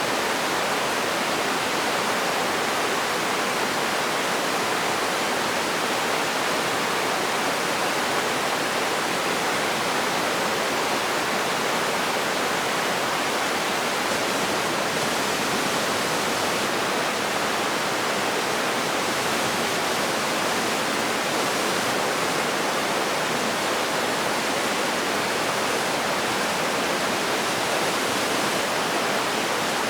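Steady, even rushing of running water, unbroken and unchanging in level.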